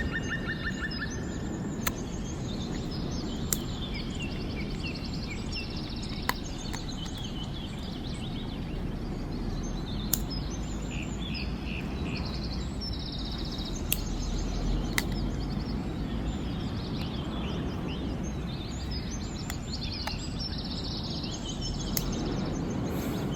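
Small birds singing in repeated chirps and short trills over a steady low rushing noise, with a few sharp clicks scattered through.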